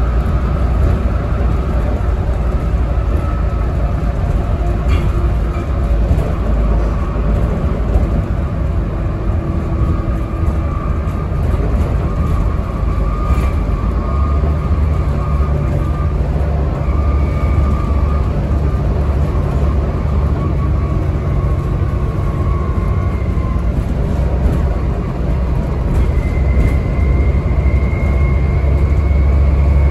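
Volvo B7TL double-decker bus heard from inside, its six-cylinder diesel and drivetrain running under way with a steady low rumble and a faint whine. The rumble gets heavier about halfway through, and a whine climbs gently in pitch near the end as the bus picks up speed.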